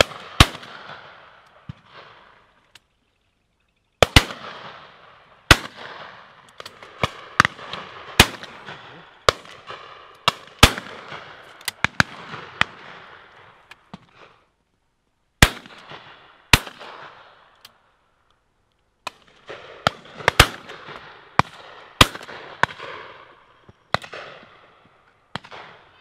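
Shotguns firing over and over from several guns: irregular single shots, some close and loud, others fainter and farther off, each followed by a rolling echo.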